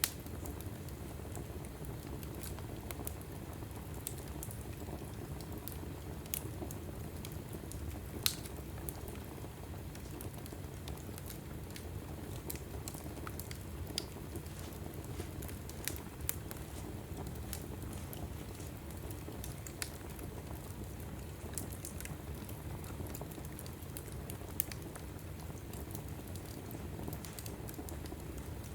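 Log fire burning in a fireplace: a steady low rumble of flame with scattered sharp crackles and pops, a few louder snaps standing out.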